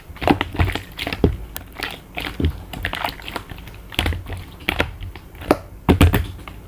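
Glittery slime being squeezed and pressed by hand, giving irregular clicking and crackling pops as air pockets burst.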